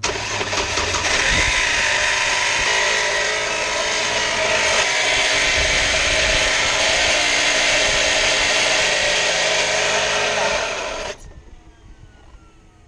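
Chevrolet TrailBlazer's 4.2-litre inline-six running with a loud, steady grinding noise over it, which the mechanic takes for a failing alternator bearing. It cuts off suddenly about eleven seconds in.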